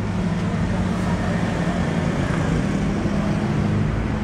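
Street traffic noise: a steady low engine hum with a broad rushing haze, no distinct events.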